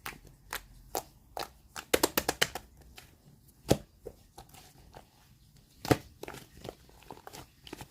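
Clear slime being squeezed and pressed by hand, giving sharp clicks: a quick run of them about two seconds in, and single louder ones near four and six seconds.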